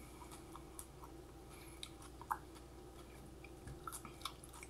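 Faint mouth clicks of a person chewing a raw Big Mama Mustard hot pepper pod, with one sharper click a little over two seconds in.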